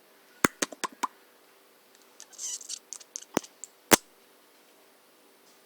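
Scattered sharp clicks: four quick ones about half a second in, a soft rustle around two and a half seconds, then two louder clicks near four seconds.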